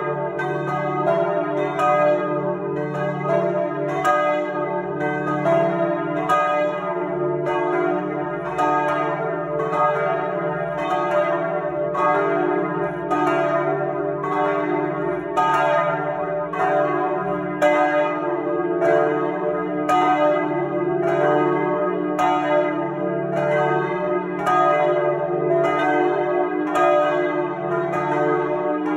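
Three bronze church bells cast by Perrin-Martin in 1860, swinging and ringing together in full peal, heard close up inside the belfry. Their strokes come in a steady, overlapping stream over a continuous low hum.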